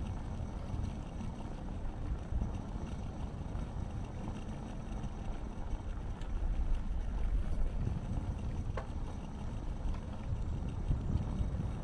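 Steady low rumble of wind on the microphone and road noise from riding a bicycle along city streets.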